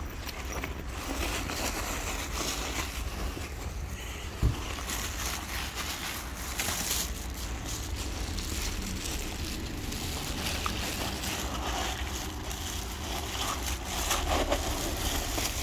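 Wind buffeting the microphone, with plastic bag rustling as a hand digs through a bag of cat food. A single sharp knock about four and a half seconds in.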